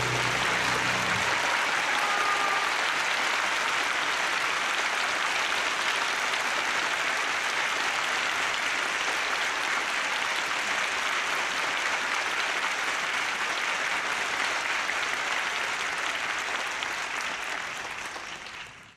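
Large concert-hall audience applauding steadily, a dense even clapping, as the last low piano chord rings out in the first second; the applause fades out near the end.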